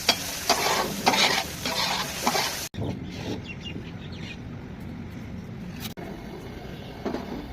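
Chicken frying on a tawa: a spatula stirs and scrapes in repeated strokes, about two a second, over the sizzle of oil. After a sudden cut under three seconds in, only a quieter steady sizzle remains.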